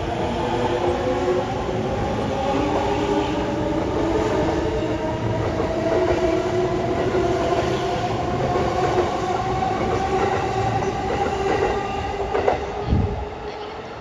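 Keihin-Tohoku Line E233-1000 series electric train passing close by: several motor tones climb slowly as it gains speed, over the rumble of its wheels on the rails. Near the end come two sharp clacks, then the sound drops away as the last car clears.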